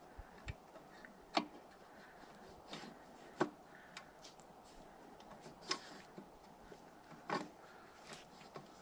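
Faint, scattered small clicks and ticks at irregular intervals, about ten in all, over a low steady hiss.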